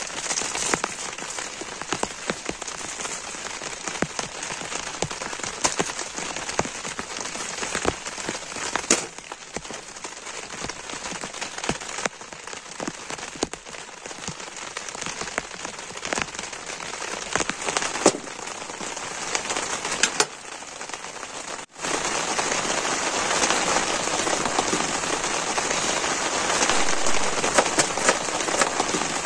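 Steady rain pattering on a tent, with scattered sharp drop taps. After a brief dropout about two-thirds of the way through, the rain is louder.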